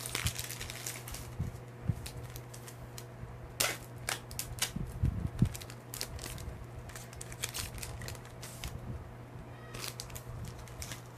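Crinkling and tearing of a trading-card pack wrapper, with cards being handled: an irregular run of sharp crackles and clicks.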